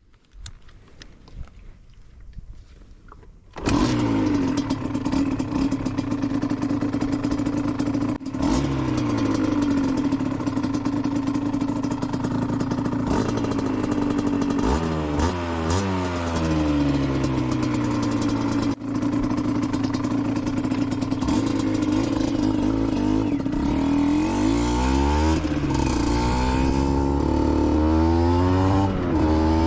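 Aprilia SX 125's single-cylinder two-stroke engine with an Arrow exhaust. It comes in abruptly about three and a half seconds in, after a few quieter clicks, then runs loudly with the revs rising and falling several times.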